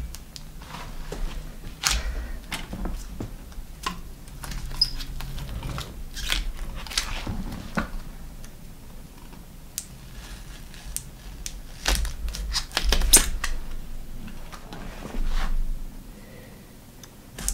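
Scattered clicks, taps and rustles of hands stripping old tape and a crusty foam grip off a bicycle's drop handlebars, with cables and brake levers knocking against the bars. The loudest knocks come about twelve to thirteen seconds in.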